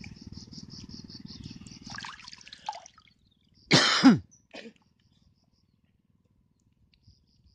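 Crickets chirping in a rapid, even pulse over a low outdoor rumble, stopping about three seconds in. About four seconds in a person gives one short, loud cough, followed by near silence.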